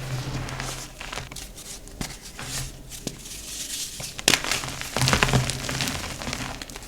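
Blocks of dyed gym chalk being crumbled and crushed: dense irregular crackling and crunching, with one sharp, loud snap a little past halfway followed by a thicker burst of crunching.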